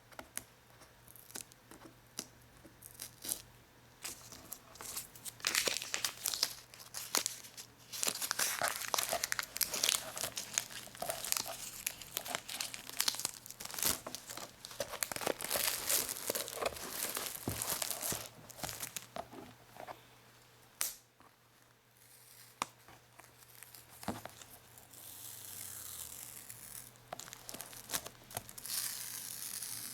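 Sticky material being peeled close to the microphone: a run of crackling, tearing rips, densest through the middle. It eases off, then gives way to a softer, smoother hiss near the end.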